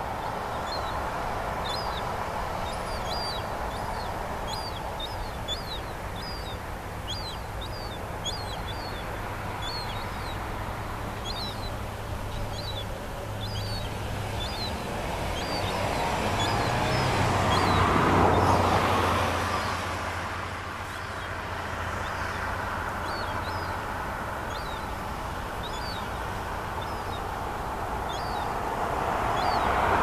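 Steady traffic noise that swells twice as vehicles pass, once about halfway through and again at the end. Over it is a run of short, high bird chirps, about one or two a second.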